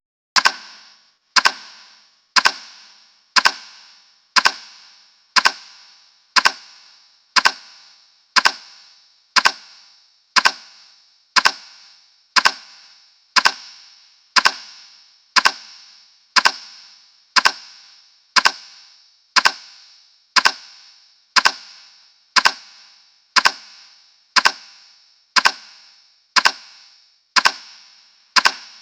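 A timer's tick sound effect: a sharp, bright click once every second, each with a short ringing tail, counting off the seconds.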